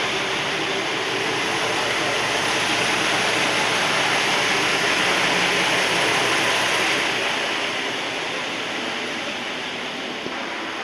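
Amagi Railway diesel railcar running along the line, heard from inside the car: a steady rushing of engine and wheels on rail that eases off from about seven seconds in.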